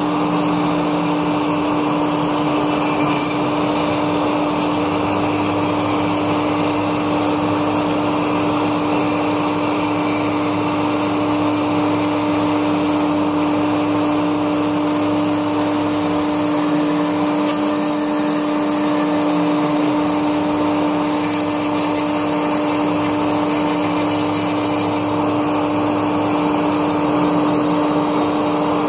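Laguna Smartshop II CNC router running while it cuts foam: a steady whine at one constant pitch over a noisy hiss, with a lower hum underneath that comes in a few seconds in, shifts in pitch a little past the middle and fades out near the end as the machine moves.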